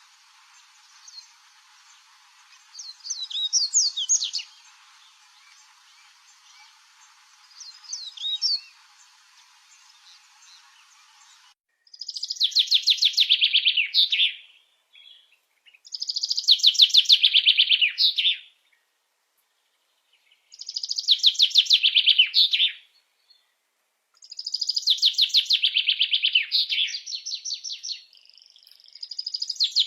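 Songbird song: a few short chirps over a faint hiss, then, after a cut about twelve seconds in, a bird repeating a fast trilled phrase of two to three seconds that falls in pitch, five times, about every four seconds.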